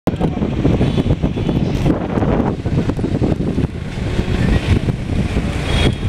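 Street traffic noise: a dense rumble of passing vehicles, with wind buffeting the microphone.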